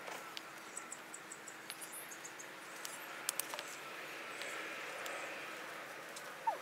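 Faint outdoor ambience, with a quick run of thin, high chirps from about one to two and a half seconds in and scattered light clicks and rustles.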